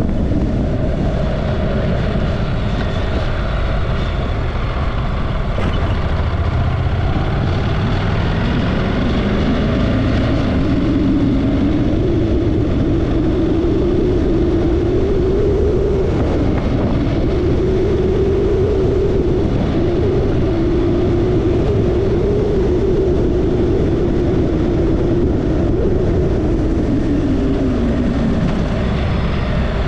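Honda parallel-twin motorcycle engine under way with a heavy rush of wind. The engine note climbs steadily from about seven seconds in, holds around a cruising pitch with small rises and dips, and drops away near the end as the bike slows.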